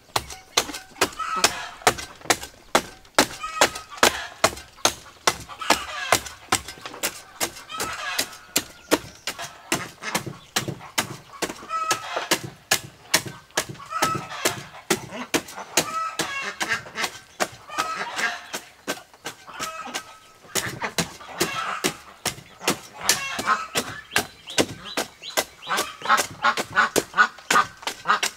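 A hoe repeatedly chopping into soil clods in a wooden planter box, about two dull strikes a second. Fowl honk intermittently in the background.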